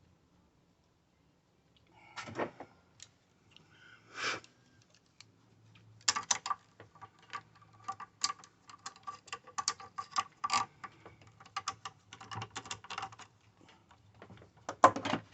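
Irregular clicking and clattering of hard objects being handled. It starts about two seconds in and comes in quick runs through the middle, with a faint ringing tone under the clicks.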